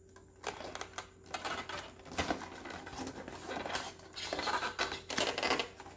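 Action-figure packaging being handled: the plastic blister tray and cardboard crinkle, scrape and tap irregularly. The handling starts about half a second in.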